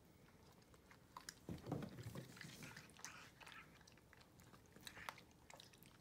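Faint chewing and mouth sounds of two white-faced capuchin monkeys eating oatmeal from a plastic tub, with scattered small clicks.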